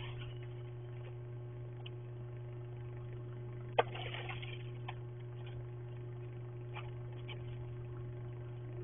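Steady electrical hum from a security camera's microphone. About four seconds in, a snow shovel strikes the driveway with one sharp knock and scrapes briefly, followed by a few faint scrapes.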